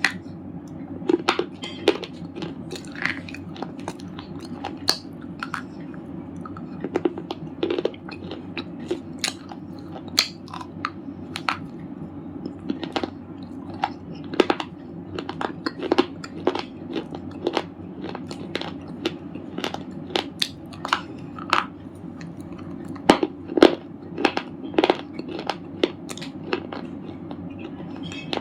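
Red slate chips being bitten and chewed close to the microphone: a long run of sharp, irregular crunches, one to three a second, over a steady low background noise.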